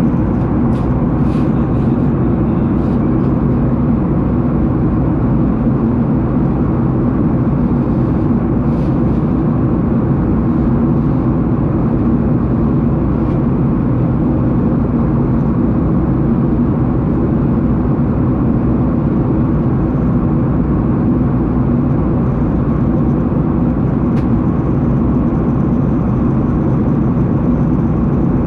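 Steady airliner cabin noise: jet engines and airflow making a constant low drone.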